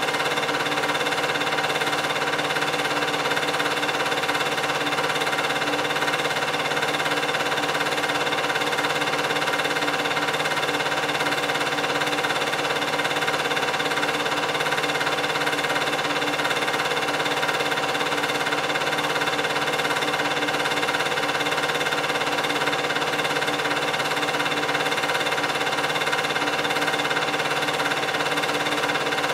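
8mm film projector running steadily, its motor and film mechanism making a constant hum and whirr with several fixed tones.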